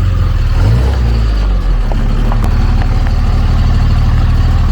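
Honda S2000's engine idling steadily while the car is being moved.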